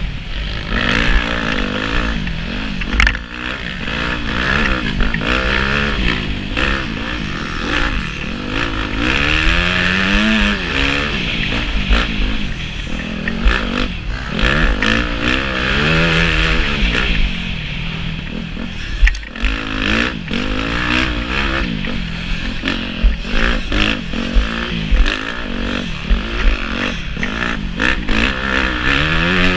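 Dirt bike engine revving up and down over and over as the rider accelerates and shifts round a motocross track, heard from a helmet-mounted camera, with scattered sharp knocks as the bike hits ruts and bumps.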